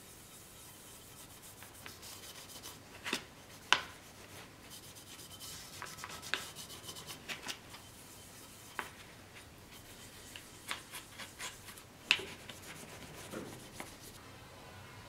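Steel sword-handle fittings rubbed and shifted by hand inside a shallow metal tin: irregular scraping with a few sharp metal clinks, the loudest about three, four and twelve seconds in.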